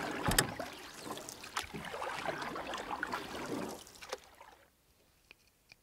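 Rustling and light knocks of handling noise, with a sharp knock shortly after the start, dying away about four and a half seconds in.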